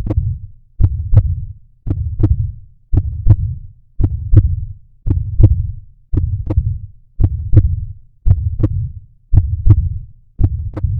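Heartbeat audio: a steady, slow pulse of paired low thumps (lub-dub), about one beat a second.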